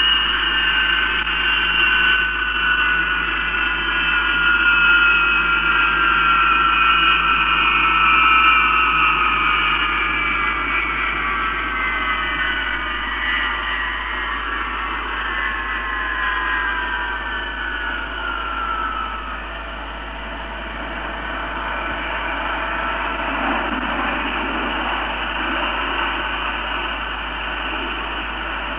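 BAC 221's Rolls-Royce Avon turbojet running down after taxiing in: a high whine in several tones falls slowly in pitch and fades out after about twenty seconds, over a steady hiss.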